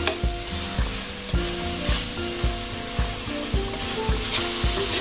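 Chicken pieces sizzling in a hammered carbon-steel wok as they are stirred with a spatula, over background music with a steady beat.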